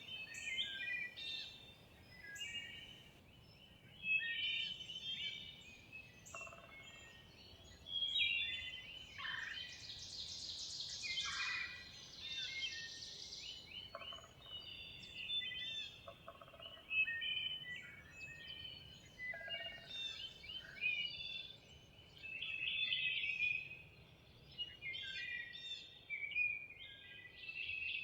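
Woodland spring chorus: several songbirds singing in short, overlapping phrases. The loudest moment is a dense rattling burst about ten to thirteen seconds in.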